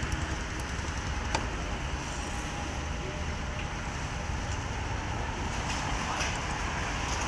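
Steady low background rumble, with one sharp click about a second and a half in and a few faint ticks later.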